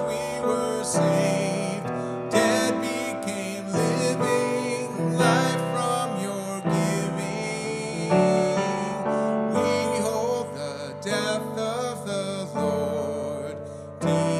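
Piano playing a slow, gentle hymn tune in an instrumental passage between sung verses.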